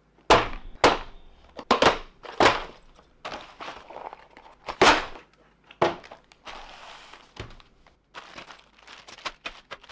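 A cardboard kit box and sealed plastic bags of parts being handled. There are about seven sharp knocks and thunks over the first seven or so seconds, mixed with plastic crinkling that becomes a steadier rustle from about six seconds in.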